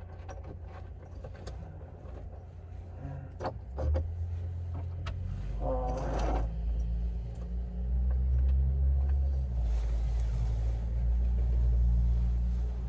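A steady low rumble that grows louder about halfway through, with light metallic clinks of loose screws being handled and a brief voice about six seconds in.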